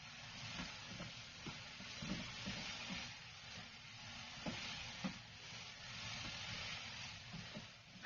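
Bitter gourd stir-fry sizzling in a pan while it is stirred, with a spatula knocking and scraping against the pan at irregular moments. The sizzle swells and fades in waves.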